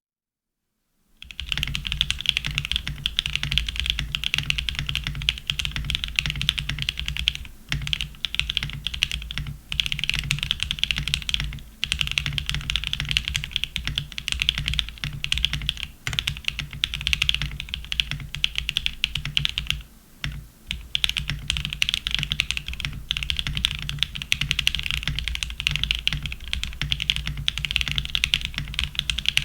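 Fast continuous typing on a custom polycarbonate Ciel65 mechanical keyboard with a POM plate and Mode Tomorrow tactile switches, a dense clatter of keystrokes that starts about a second in, with a few brief pauses.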